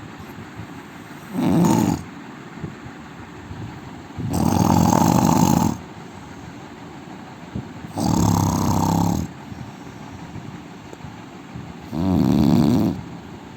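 A man snoring loudly: four rough snores, one about every four seconds, each lasting a second or so.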